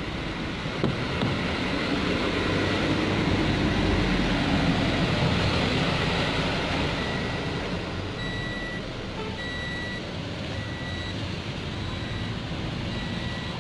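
Steady outdoor traffic rumble, with a single click about a second in. In the second half a high electronic beep repeats about once a second.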